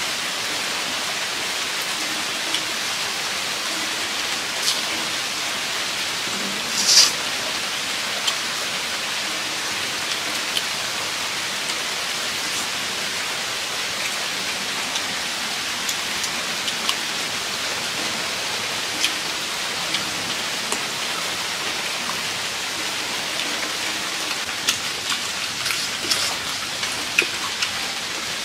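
A steady, even hiss of background noise, with scattered faint clicks and smacks of chewing that come more often near the end. One louder, short sharp sound about seven seconds in.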